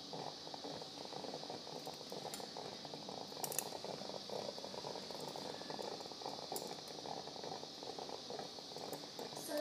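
Steady crackling hiss of operating-room background noise, with a few faint clicks of steel surgical instruments during suturing.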